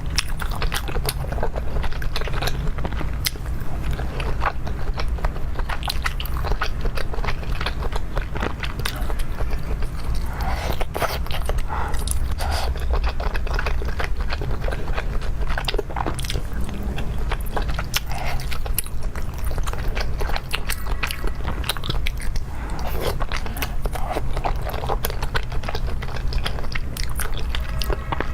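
Close-miked eating: biting and chewing with many quick, irregular crunchy clicks and wet mouth sounds, over a steady low hum.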